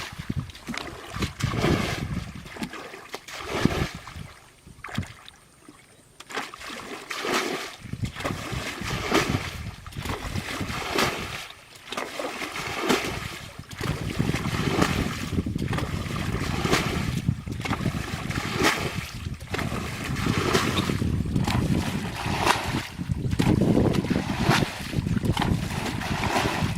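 Water splashing and sloshing in repeated irregular strokes, over a low rumble of wind on the microphone.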